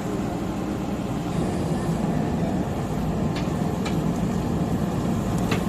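Diesel engine of a backhoe loader running steadily, with a few short sharp knocks about three and a half, four and five and a half seconds in.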